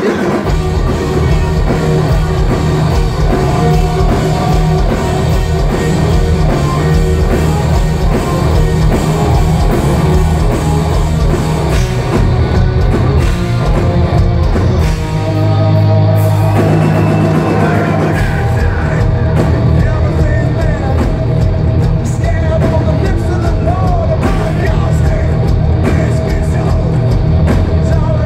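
Live rock band heard loud through a concert PA: an electric guitar solo played over drums and bass.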